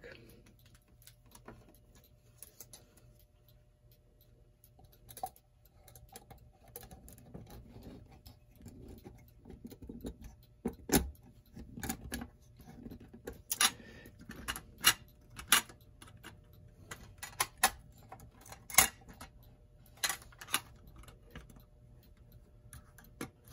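Irregular small metallic clicks and knocks as a clock movement is handled and fitted into its wooden case, with soft rustling of handling between; the clicks come thicker in the second half.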